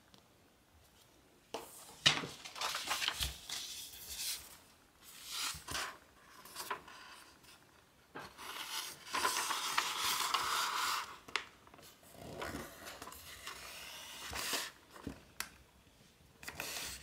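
Sheets of paper being handled and folded on a table: irregular rustling and rubbing in bursts, with a sharp tap about two seconds in, after a near-silent first second and a half.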